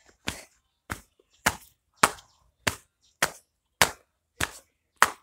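Nine sharp knocks in a steady, even rhythm, a little under two a second.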